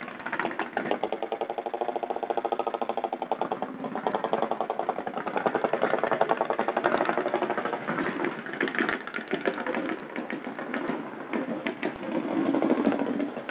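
A combustion engine running near idle with rapid, even firing pulses, swelling and fading in level a few times.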